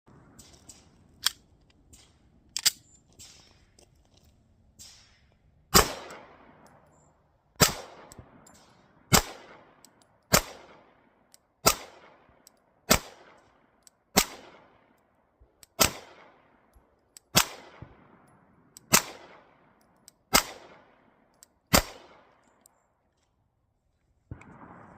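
Glock 26 9mm subcompact pistol firing single shots: two shots, a short pause, then a steady string of about a dozen deliberate shots, roughly one every second and a half, each with a brief decaying echo.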